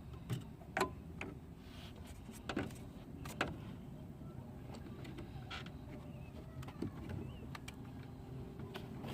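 Scattered light clicks and taps from hands and tools working on the inside of an opened car door, over a faint steady hum.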